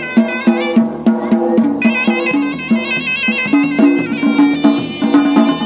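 Traditional folk music: a reed wind instrument plays a wavering melody over regular drum beats.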